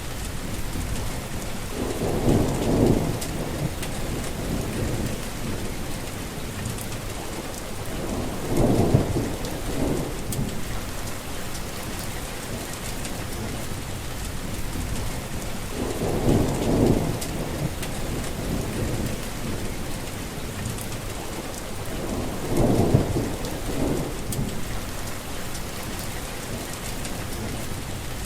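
Heavy rain falling in a steady hiss, with a low rumble of thunder swelling and fading four times, about every six or seven seconds.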